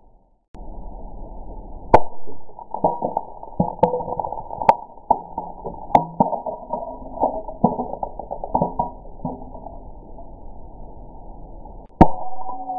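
A glass jar smashing on concrete paving slabs about two seconds in, followed by several seconds of glass shards clinking and skittering across the stone that gradually die away. A second glass smash comes near the end.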